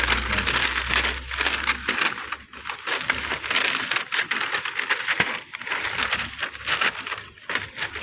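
Plastic wrapping crinkling and rustling as new car parts are handled and unwrapped, with many small crackles and clicks.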